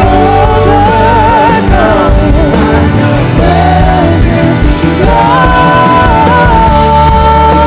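A live worship band playing with a lead vocalist singing. The melody is sung with vibrato and ends in one long held note from about five seconds in.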